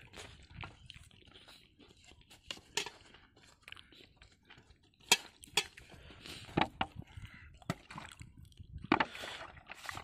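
Wet squelching of tomato, green chilli and onion being crushed by hand into a raw tomato chutney in a small steel bowl, with scattered sharp clicks through it.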